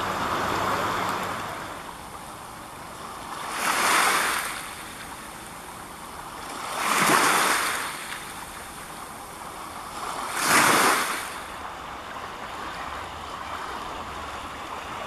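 Small waves washing onto a rocky shore: a steady hiss of water with three swells of surf, each rising and falling over about a second, some three seconds apart.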